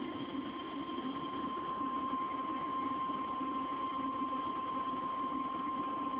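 Weather-radio warning alarm tone: a single steady high beep near 1050 Hz, held over radio hiss and hum, that cuts off abruptly near the end. It is the attention signal that comes before a severe thunderstorm warning message.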